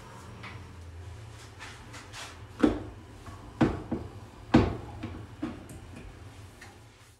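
Clanks and knocks from a Silex electric contact grill as its metal lid is lifted and lowered over a round of dough; three sharp knocks stand out, with smaller ones between. A steady low hum runs beneath.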